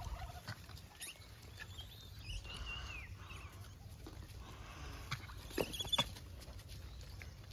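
Gray langurs moving and scrabbling on dry ground with faint rustling and pattering, and a few short high squeaky calls: one falling call about two and a half seconds in and a couple of sharp squeaks near six seconds.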